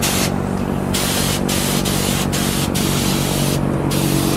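Air-fed paint spray gun hissing as it sprays a first coat of paint onto a steel roll cage. The spray stops for a moment several times, with a steady low hum underneath.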